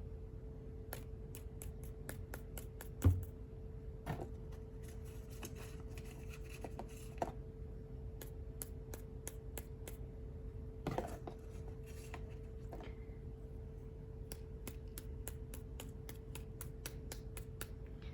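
Light, quick ticks in runs of several a second from hand work with a paintbrush on card stock, with a few soft knocks, the loudest about three seconds in. A faint steady hum lies underneath.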